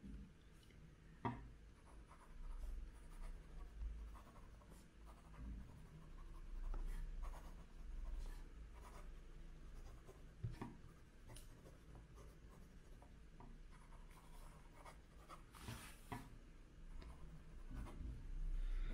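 Medium-point nib of an ebonite fountain pen writing a line of handwriting on 90 GSM paper: faint, irregular strokes with a few small taps. The nib is smooth and wet-flowing.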